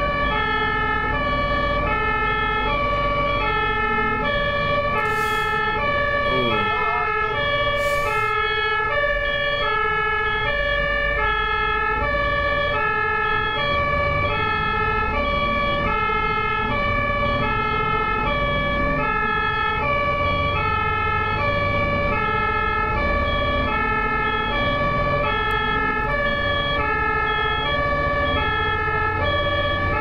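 German ambulance two-tone siren (Martinshorn) sounding continuously, switching evenly back and forth between a high and a low pitch, with low road rumble beneath.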